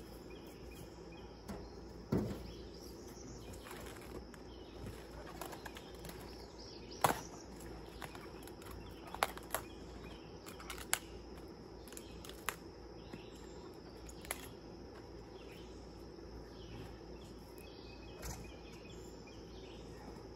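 Cabbage being harvested by hand: a scattering of sharp snaps and cracks as heads and outer leaves are broken off the plants, with leaves rustling between them. A steady chirring of insects runs underneath.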